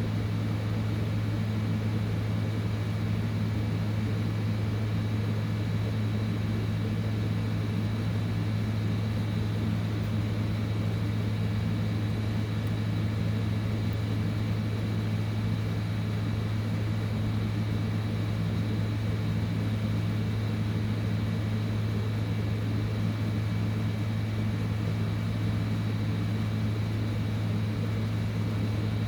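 Heat gun blowing steadily during hot-air desoldering of MOSFET chips: a constant low hum with a faint steady whine above it.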